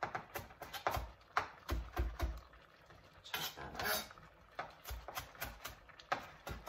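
Chef's knife rough-chopping fresh cilantro on a cutting board: irregular knocks of the blade on the board, with a brief scrape about three and a half seconds in.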